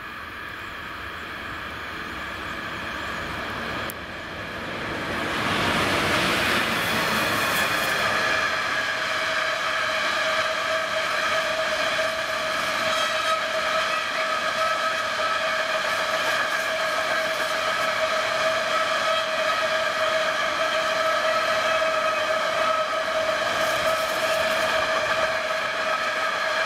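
A freight train passing: the locomotive approaches and goes by about five seconds in, then a long rake of empty stake flat wagons rolls past. A steady high ringing tone runs over the rolling noise while the wagons pass.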